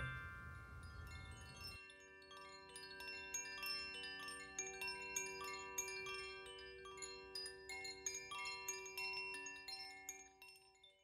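Quiet music of bell-like chime notes: a quick rising run near the start, then many struck notes ringing on over one another, stopping shortly before the end.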